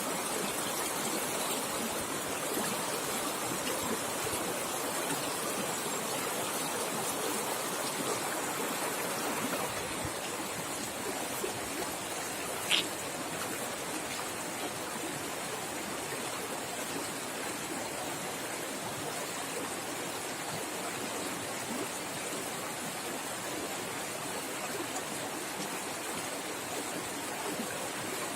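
Fast river water flowing as a steady rushing noise, with one brief, sharp high sound about halfway through.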